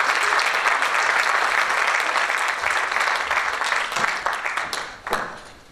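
Audience applauding, many hands clapping together. The clapping is dense at first, thins out about four seconds in and stops about five seconds in.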